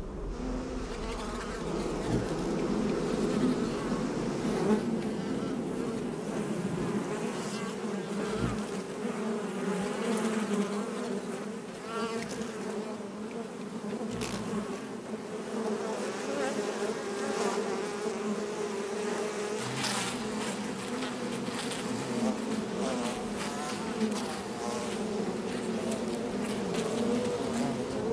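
A dense swarm of honeybees buzzing steadily, many wings together.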